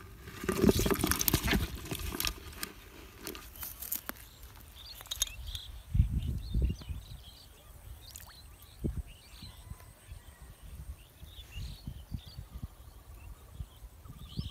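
A burst of rustling, crackling clatter in the first two seconds, then outdoor ambience with short high chirps of birds and a few scattered low bumps of handling or wind.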